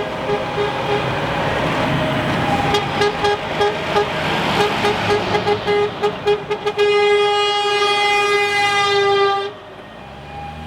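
Truck horn honking over the noise of passing truck engines: a quick series of short toots, then one long blast of about three seconds that cuts off suddenly.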